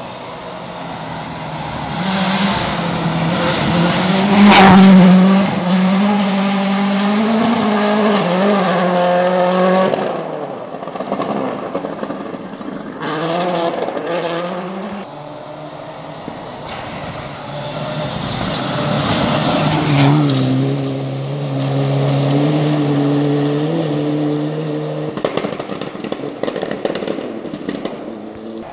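Rally car engines at full throttle on a gravel forest stage, shifting up through the gears with pitch rising and dropping at each change. One car passes close about four seconds in with a sharp peak of noise, and engine noise builds again in the second half.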